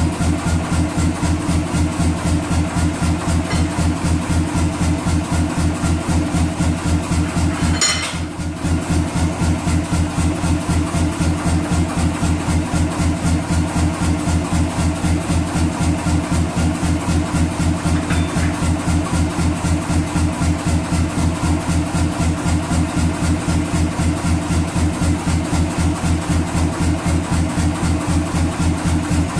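Self-contained air power hammer idling: its motor and compressor running with a fast, even, low chugging beat, the ram not striking.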